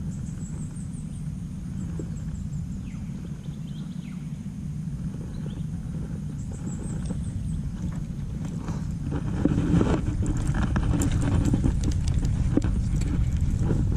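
Rustling and a run of sharp clicks and knocks from an angler handling a casting rod and moving through long grass, louder from about nine seconds in, over a steady low rumble. A short, rising run of high chirps comes twice in the first half.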